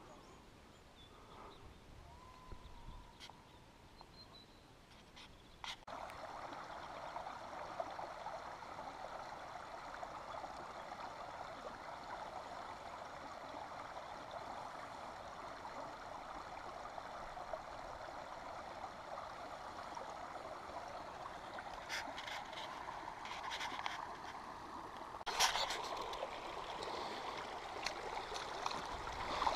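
Shallow stream running over stones, a steady rushing babble that sets in about six seconds in after a quieter stretch. Near the end there are a few sharp knocks from footsteps on the wet stony bank and into the water.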